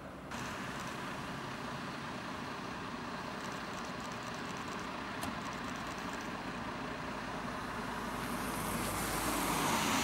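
Fire engines running on a wet road, a steady engine and traffic noise that grows louder near the end as a truck approaches with rising tyre hiss.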